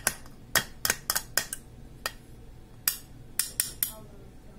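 Stainless-steel kitchenware clinking and knocking, about ten sharp irregular clinks, as thick strained curd is tipped and scraped from a steel strainer and bowl into a mixer jar. One clink near the end rings briefly.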